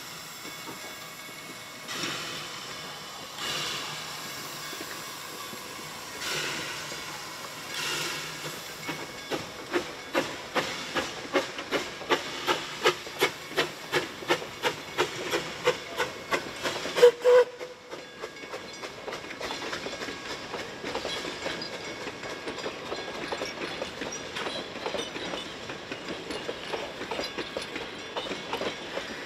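Puffing Billy's NA-class 2-6-2T steam locomotive 12A working past with steam hiss and slow, widely spaced exhaust chuffs. These become regular, loud beats about two a second as it draws close, ending in a sharp loud burst. The carriages then roll by with a steady rumble and wheel clatter.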